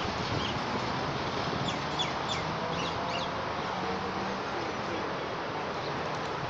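Outdoor ambience of steady background noise with scattered short, high chirps of small birds, bunched about two to three seconds in.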